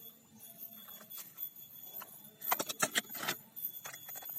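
A quick cluster of sharp, rattling clicks a little past halfway, like hard plastic being handled, over faint hiss.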